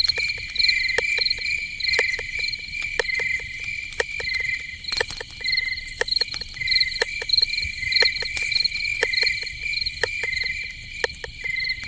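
Night insect chorus: crickets chirping in short, evenly pulsed trills at two steady pitches, one higher than the other, repeating about once or twice a second, with scattered sharp clicks and ticks sounding several times a second over them.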